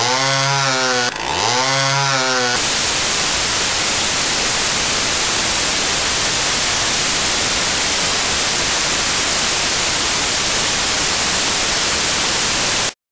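Chainsaw engine revving up and down twice in quick succession. It gives way to a steady, loud hiss like static, which cuts off abruptly near the end.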